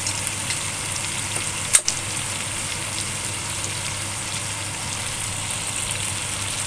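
Marinated chicken wings frying in a stainless steel honeycomb wok, a steady sizzling hiss with fine crackling. A single sharp click comes a little under two seconds in.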